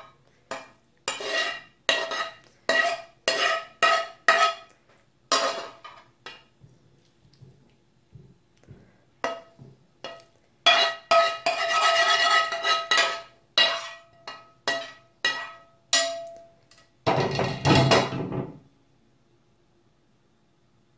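A metal spoon scraping and knocking against a non-stick frying pan, the pan ringing faintly after each stroke, as sautéed courgette pieces are scooped out. There is one run of strokes, a pause of a couple of seconds, then a second, busier run, and a longer clatter near the end.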